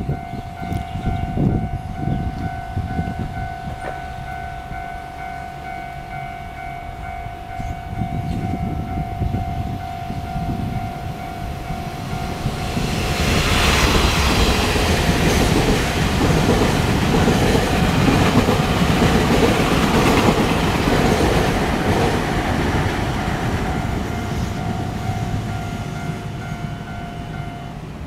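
Level-crossing warning bell ringing steadily while a Taiwan Railways train passes: the rumble and rail noise of the train build about halfway through, stay loud for several seconds and then fade. The bell stops just before the end.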